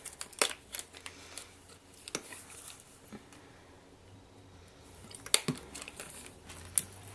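Small plastic pots and a flip-top bottle being handled: scattered light plastic clicks and crinkling, the loudest click about five seconds in.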